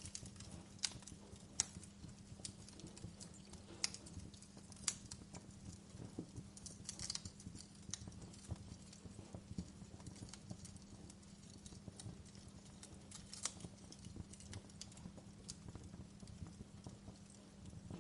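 Wood fire crackling: irregular sharp pops and snaps of burning logs, a few a second, over a low steady hum.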